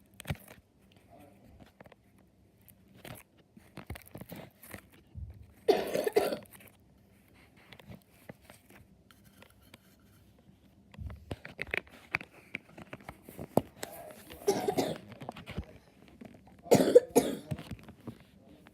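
Floam slime being squeezed and poked: many small crackles and clicks from its beads, with three short, louder bursts, the loudest near the end.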